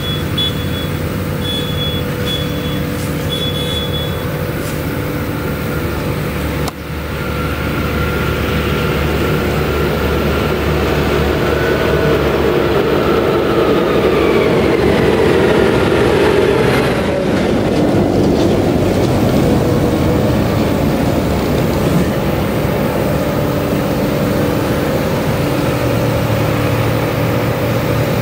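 John Deere tractor's diesel engine working on a maize silage clamp, running steadily under load as it drives over the pile, its note sliding down in pitch around the middle. A few short high beeps sound in the first few seconds.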